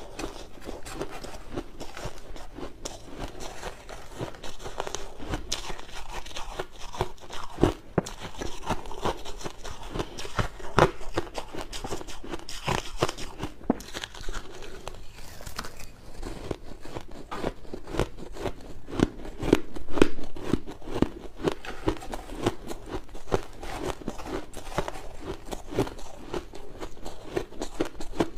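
Close-miked crunching of crushed ice chewed in big mouthfuls, a dense, irregular crackle with a few louder cracks.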